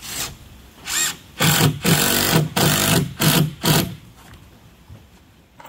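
Handheld power tool run in short bursts: two brief ones, then a quick run of about six more.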